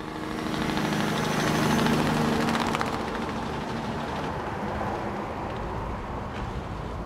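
Engine running with a steady low hum over a rushing noise; the hum fades after about three seconds.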